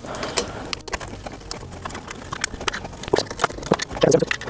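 Screws being driven in by hand to fasten a kick scooter's fender: a run of small, irregular clicks and scrapes, several a second.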